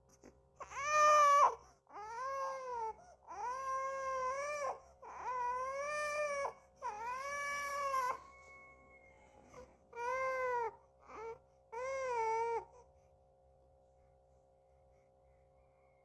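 Baby-like crying: about eight long wails, each about a second long and rising then falling in pitch, with a short one near the end. The crying stops about 13 seconds in.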